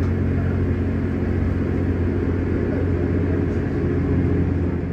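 Diesel railcar engine idling steadily at the platform: a low, even hum that fades slightly near the end.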